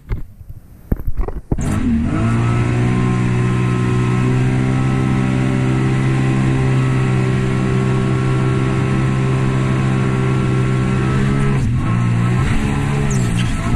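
A Sea-Doo Spark Trixx personal watercraft's three-cylinder Rotax engine. It is quiet at first with a couple of sharp knocks, then throttles up about two seconds in and runs at steady high revs. Near the end the revs drop and waver briefly before picking up again.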